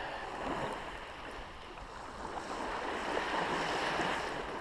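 Spinning reel being wound in fast on a surfcasting rod, with small waves washing on the shingle; the sound swells twice.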